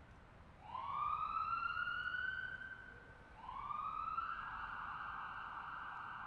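Ambulance siren wailing: a slow rising wail that fades out, then a second rise about three seconds in that levels off into a steady held tone.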